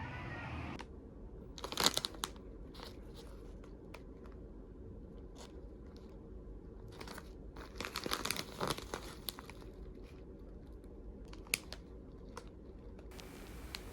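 Intermittent crinkling and crackling of something being handled, with scattered sharp clicks; denser bursts come about two seconds in and again around eight to nine seconds.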